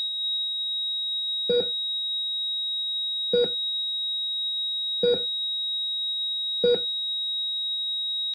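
Heart-monitor sound effect: a continuous high-pitched flatline tone, the sign that the heart has stopped, with a second monitor's heartbeat blips sounding four times, about every second and a half, over it. The tone cuts off suddenly at the end.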